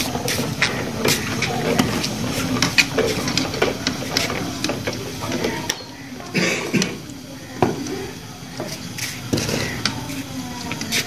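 Indistinct background voices over a steady low hum, with frequent light clicks and knocks.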